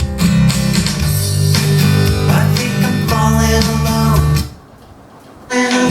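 Song with strummed guitar and a heavy bass line playing through a JVC CA-DXT9 hi-fi system with its subwoofer. About four and a half seconds in the music drops to a short, much quieter break, then comes back in just before the end.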